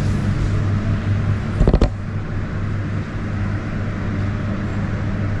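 A steady low mechanical hum under a rush of background noise, broken a little under two seconds in by a quick cluster of knocks.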